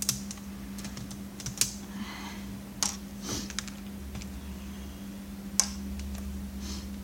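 Scattered light clicks and taps of plastic monitor parts and a tool being handled during disassembly, a sharper click about five and a half seconds in, over a steady low hum.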